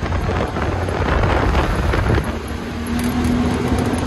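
Side-by-side UTV driving along a dirt trail: a steady engine drone with wind buffeting the microphone, and a steady engine tone that comes in about two seconds in.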